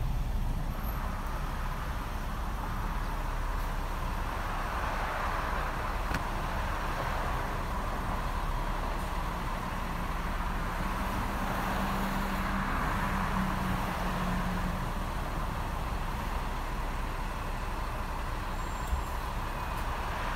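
Steady noise of a car idling, heard from inside the cabin, with road traffic outside. A low hum joins for a few seconds in the middle.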